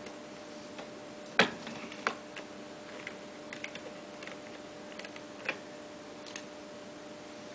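A hammer striking the wheelbarrow's handle hardware: one sharp knock about a second and a half in, a lighter one shortly after, then scattered light clicks and taps. A steady low hum runs underneath.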